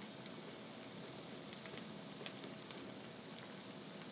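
Oiled corn tortillas sizzling steadily on a hot flattop griddle, with a few faint light ticks.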